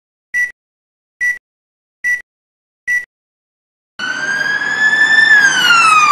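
Four short, identical film-leader countdown beeps a little under a second apart. Then a police car siren starts suddenly and sounds one long wail, rising slowly in pitch and then falling.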